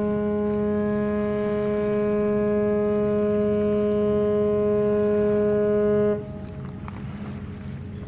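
Ship's whistle of the JMSDF oil tanker YOT-01 sounding one long, steady blast that cuts off suddenly about six seconds in, leaving a low hum.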